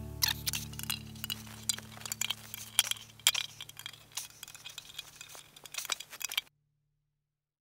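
A metal tool repeatedly clinking and scraping against the rim of a stuck metal paint tin lid as it is pried at. The lid does not come off. The clicks come at an irregular pace and stop abruptly about six and a half seconds in, leaving silence.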